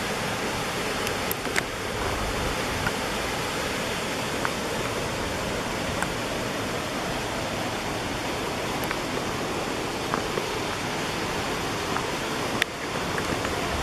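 Small creek waterfall pouring steadily into a pool, a constant rushing wash of water, with a few faint clicks.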